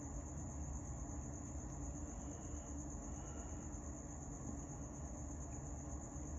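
Faint scratching of a pen writing on paper, under a steady high-pitched whine and a low hum.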